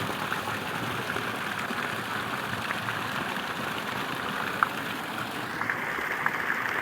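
Running water, a steady splashing hiss with small drips and clicks; the higher part of the hiss dulls about five seconds in.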